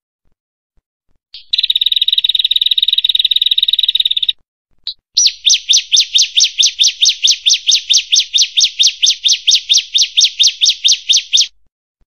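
Prinia (prenjak) singing: a rapid buzzing trill for about three seconds, a single short note, then a long run of fast, evenly repeated chirps, about five a second, that stops shortly before the end.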